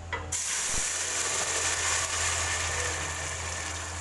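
Wet blended chilli and onion paste poured into hot cooking oil in a stainless steel pot, sizzling loudly. The sizzle starts suddenly about a third of a second in as the paste hits the oil and keeps going steadily: the start of frying the spice paste.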